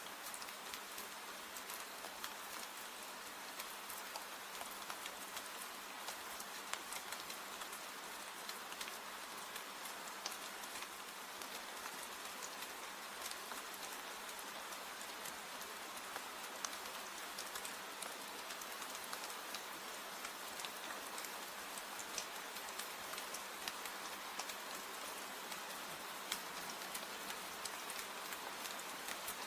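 Steady rain falling, a constant hiss with many scattered sharp ticks of drops throughout.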